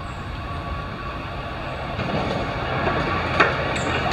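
Class 66 diesel freight locomotive and its wagons approaching: a low engine and wheel rumble that grows louder over the last two seconds. A single sharp click comes near the end.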